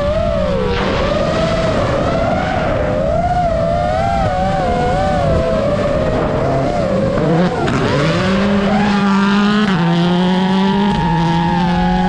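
Rally car engine sound, wavering up and down in pitch, over a low bass that steps between notes; from about eight seconds in the pitches move in steps and then hold level.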